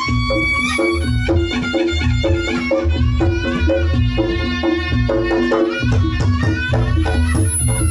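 Reog Ponorogo gamelan playing loudly through a sound system: a reedy slompret (shawm) melody over kendang drum beats, repeated kenong and kethuk notes and deep bass.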